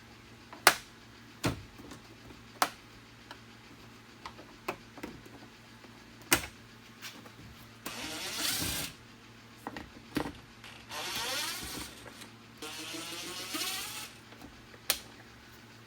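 Jeep Wrangler JK plastic door trim being pulled off: sharp clicks and knocks as the clips let go, and three longer scraping or rasping noises of plastic rubbing as the piece is worked free.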